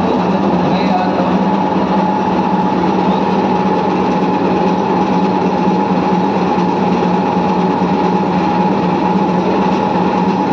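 Electric bread slicing machine running steadily, its reciprocating blade frames buzzing with a constant hum and a steady higher whine that never changes.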